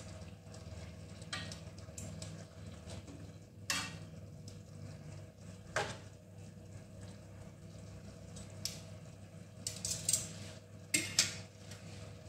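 A metal utensil knocking and scraping against a metal cooking pot during stirring: a few separate clinks spread out, then a quick cluster of them near the end, over a steady low hum.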